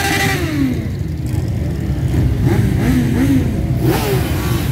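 Many motorcycles riding slowly past in a close column, their engines rumbling together. Single bikes rev up and ease off: one rev falls away in the first second, and several more rise and fall around three seconds in.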